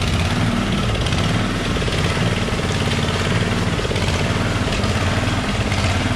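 A small engine running steadily at a constant speed, with a fast even pulse and no change in pitch.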